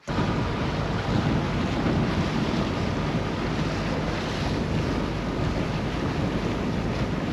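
Wind buffeting the microphone over water rushing and splashing along the hull of a motor cruiser under way, with a steady low rumble beneath.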